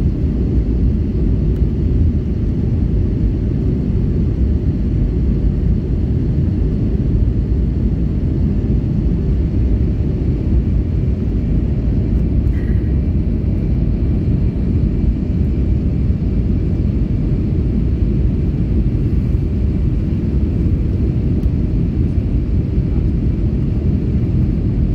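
Steady low rumble of cabin noise inside an Airbus A320neo in flight: airflow over the fuselage mixed with the drone of its Pratt & Whitney PW1100G geared turbofan engines.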